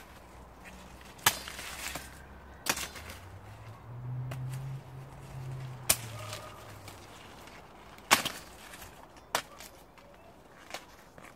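Ears of dried corn being snapped off the stalks by hand: sharp snaps, about seven, one every second or two. A low hum swells and fades in the middle.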